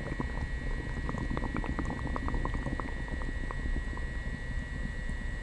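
Upset stomach gurgling and bubbling after coffee and prune juice: a quick run of small wet pops over a low rumble, busiest in the first three seconds. A steady high tone runs underneath.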